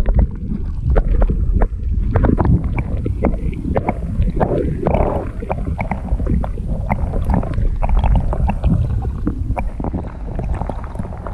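Muffled underwater sound from a camera held beneath a river's surface: a steady low rumble of moving water with frequent small clicks and knocks.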